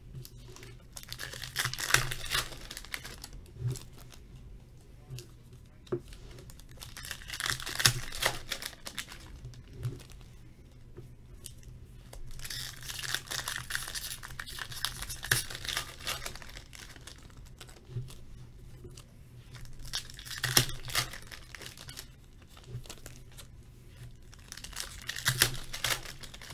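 Foil hockey card pack wrappers (Upper Deck O-Pee-Chee Platinum packs) being torn open and crinkled by hand, in several bursts of crackling with quieter pauses between as each pack is opened and its cards pulled out.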